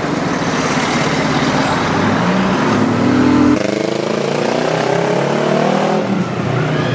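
A motor vehicle engine accelerating, its pitch rising, with an abrupt change about three and a half seconds in followed by a second rising run.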